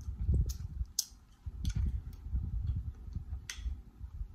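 Close-miked eating: chewing with wet mouth clicks and lip smacks, several sharp clicks standing out over soft low thuds, as fingers are licked clean.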